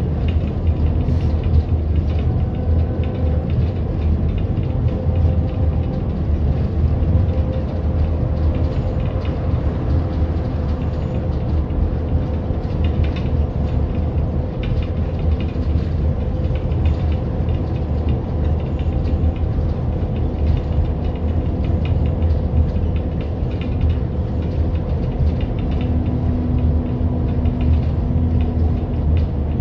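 Bus riding along, heard from inside: a steady low rumble with a faint constant whine over it.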